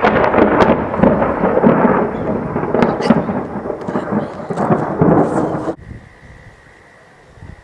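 Thunder following a nearby lightning flash: a sudden loud clap that rolls on as a rumble for nearly six seconds, then drops away abruptly.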